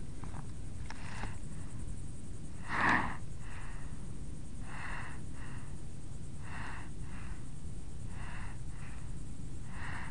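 A gopher tortoise breathing right at the microphone: soft double puffs of breath that come about every second and a half to two seconds, with one louder puff about three seconds in, over a steady low rumble.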